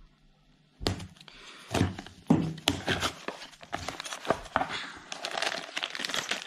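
A cardboard brake pad box being opened by hand: a sharp snap about a second in as the seal gives, then the flaps and card rustling and clicking, and a plastic bag of small parts crinkling near the end.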